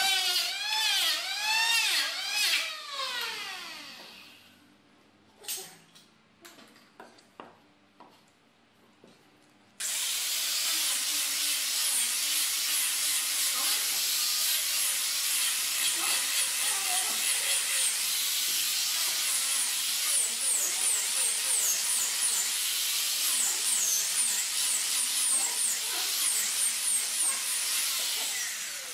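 Electric hand planer cutting curved wood, its whine dipping and recovering in quick arcs as it bites, then running down. After a quiet spell with a few knocks, an angle grinder with a sanding disc starts suddenly about ten seconds in and grinds steadily against the wood, with brief high squeals, until just before the end.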